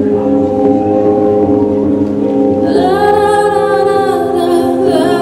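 A slow song: sustained chords, then a singing voice comes in about two and a half seconds in with long held notes.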